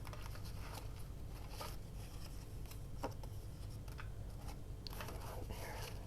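Faint rustling and light taps of paper scraps being handled and sorted, over a low steady hum.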